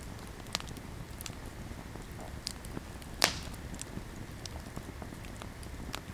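Wood campfire crackling with irregular sharp pops, one much louder pop about three seconds in that throws up a shower of sparks.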